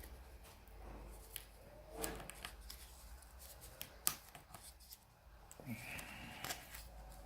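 Faint clicks and light scraping of small tools and plastic parts while a Samsung Galaxy S4 is taken apart by hand, with one sharper click about four seconds in.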